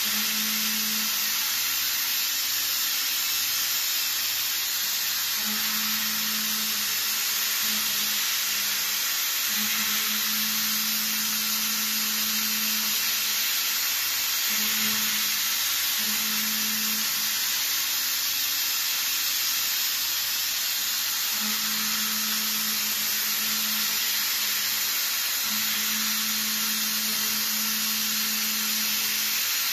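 CNC milling machine's endmill cutting a metal block under a coolant jet: a steady hiss, with a low hum that comes and goes every few seconds.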